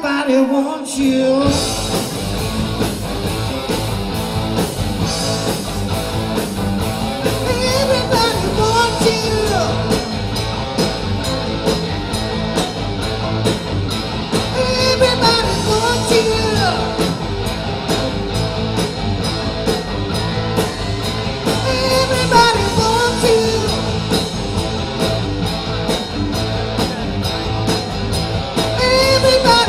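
Live rock-and-roll band playing a song with a singer over a steady drum beat; the full band comes in about a second in.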